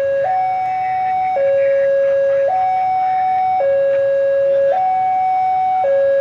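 Railway level-crossing warning alarm sounding a two-tone hi-lo signal, switching between a higher and a lower pitch about once a second, as a train approaches.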